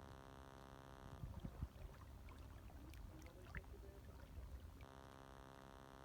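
Faint water lapping softly, with small clicks and a few low knocks, over a steady electrical hum. The lapping comes in about a second in and fades out near the end, leaving only the hum.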